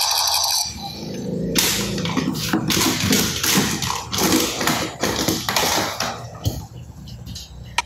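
Electronic sound effect from a toy gun's sound chip, played through its small speaker: a run of short noisy bursts, about two a second, starting about a second and a half in.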